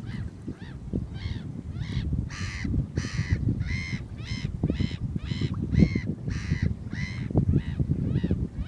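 A bird's harsh call repeated about twice a second in a long series, growing loudest a few seconds in and then fading, over a steady rumble of wind on the microphone.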